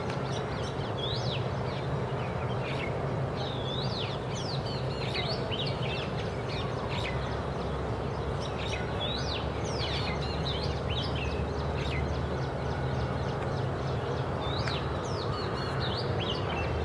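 Oriental magpie-robin singing: a running series of short, varied whistles and sweeping notes, over a steady low hum.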